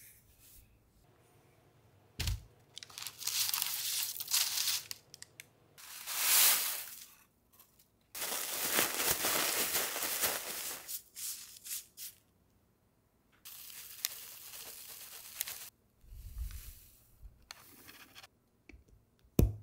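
A thin plastic bag crinkling and rustling in several bursts as the dried green leaves inside are kneaded by hand and crushed to powder. A sharp knock near the end.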